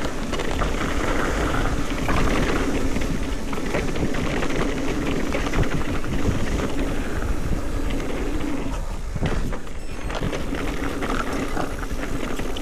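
Specialized Turbo Levo electric mountain bike ridden down a bike-park trail: steady tyre and rattle noise with wind on the mic, easing briefly about nine seconds in.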